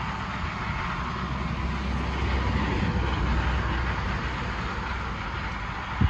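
Combine harvester at work in a cornfield, heard as a steady engine drone with a deep rumble that swells a little in the middle.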